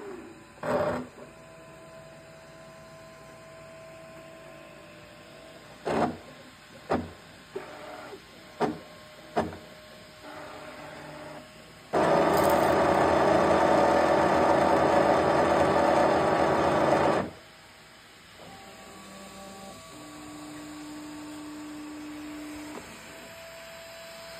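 Toybox 3D printer's motors moving the print head and bed during its warm-up test: steady whirring tones, a handful of sharp knocks, and a loud steady whir for about five seconds in the middle.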